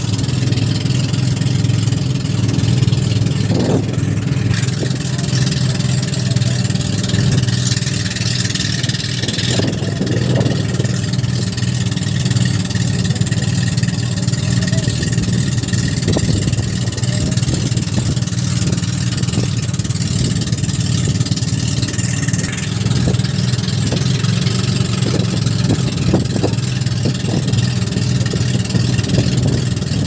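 Motorised outrigger boat's engine running steadily under way, a loud, even low drone, with the rush of water and wind over it.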